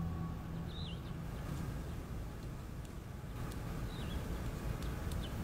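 Outdoor background ambience with a low steady rumble and a few short, scattered bird chirps.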